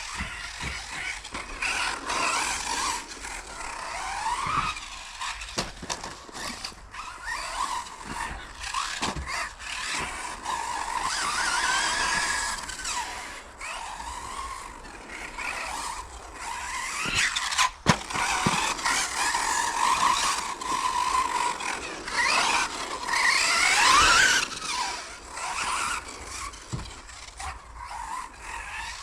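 Brushless motor of a 1/10 electric RC buggy (Supersonic V2 3660, 4250 kV on 2S) whining, its pitch rising and falling again and again with the throttle, along with tyre squeal and scrub on a carpet track.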